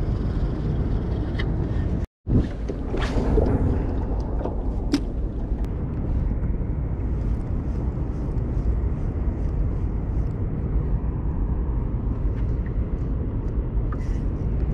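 Steady low outdoor rumble with no distinct events, broken by a split-second dropout about two seconds in.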